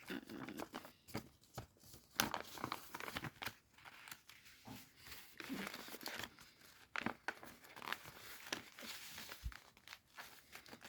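Sheet of paper being handled and folded by hand: irregular rustling and crinkling with short crackles as it is creased and unfolded.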